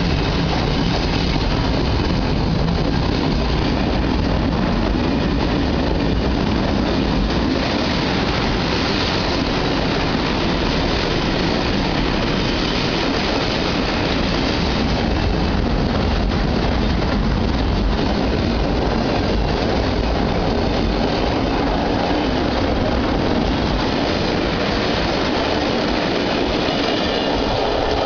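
Freight train of loaded car-carrier wagons rolling past close by: a loud, steady noise of wheels running on the rails.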